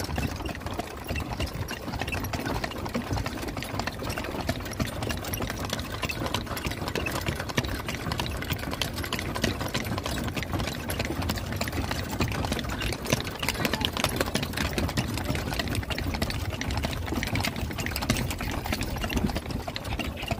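Continuous fast rattling and clattering of a horse-drawn carriage rolling along a paved road.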